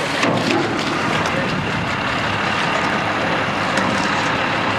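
Water gushing steadily out of a fish-hauling truck's tank and down a metal chute, splashing as it goes.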